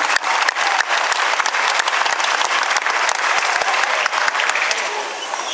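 Audience applauding, a dense crackle of many hands clapping that eases off a little near the end.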